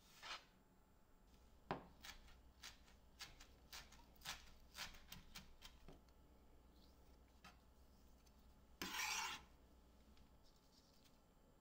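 Faint scraping of a kitchen utensil: a run of short scrapes, then one longer, louder scrape about nine seconds in.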